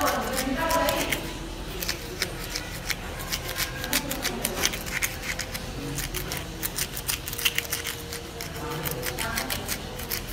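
Sandpaper rubbed back and forth over a small molded crayon-wax piece: a dry scratching in many quick, short strokes.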